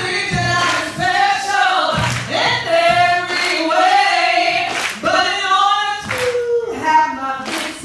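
A woman singing into a microphone, joined by a group of voices singing along, with hand claps.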